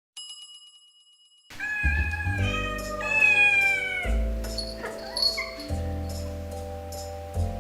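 A domestic cat meowing several times, a long falling meow among them, over light background music with held notes. It is preceded by a short chime that rings and fades away at the start.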